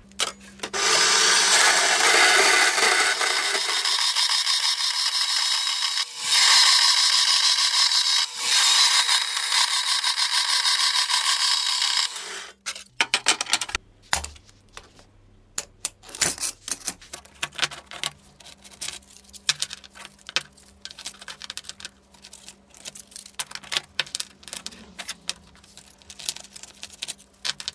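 A power tool runs on the bandsaw-blade steel for about twelve seconds, then stops suddenly. After it come many short, light metal clicks and clinks as the blade pieces are handled and stacked for the billet.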